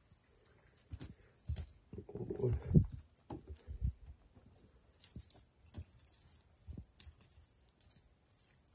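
A cat toy mouse on a cord being jiggled, jingling high-pitched in repeated on-and-off bursts. A muffled low sound comes in about two and a half seconds in.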